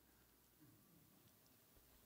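Near silence: a pause in a sermon, with only faint room tone.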